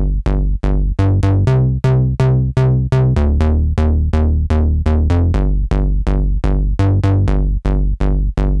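Access Virus TI synthesizer playing its 'BA Soft Square' bass preset. A repeating bass line of short notes, about three a second, each bright at the attack and quickly dulling as the filter closes, with the bass note shifting every second or two.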